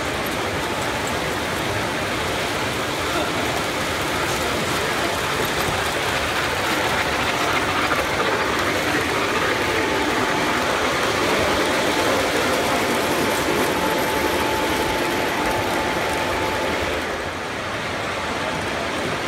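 O gauge model trains running on the layout's track: a steady clatter of wheels over rail joints with the hum of their electric motors. It grows a little louder in the middle and dips briefly near the end.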